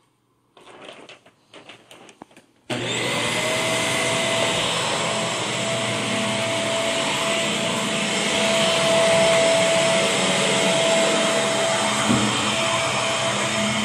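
A few faint rustles, then a stick vacuum cleaner switches on suddenly almost three seconds in and runs steadily over carpet, its motor giving a steady high whine over the rush of air.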